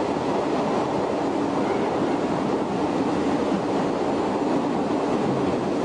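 Running noise of the Shin-Keisei 500-series electric car 504, an old nose-suspended-motor (tsurikake) train, heard from the cab while under way: a steady rumble of traction motors, gearing and wheels on rail.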